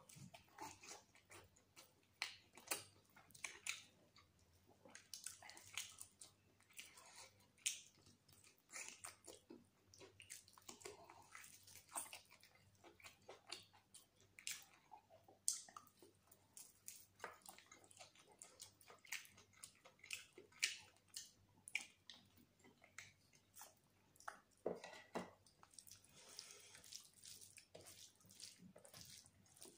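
Wet chewing, lip-smacking and biting of a man eating mutton biryani and meat off the bone with his hands: quiet, irregular sharp smacks and clicks several times a second.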